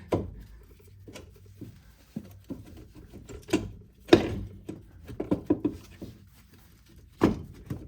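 Scattered metal knocks and clunks as a Chevy Cobalt's front strut is worked outward out of the steering knuckle, the loudest knock about four seconds in and a quick run of smaller clicks a second later.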